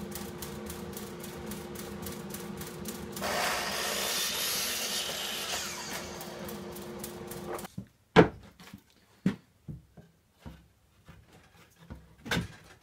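Makita miter saw running with a steady motor whine, its blade cutting through a plywood strip for about three seconds partway through. After the saw stops, a few sharp wooden knocks as plywood strips are set against a plywood cabinet box.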